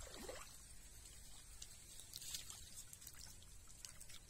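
Faint dripping and splashing of muddy water around a hand net being worked in a shallow pool, with a few soft ticks.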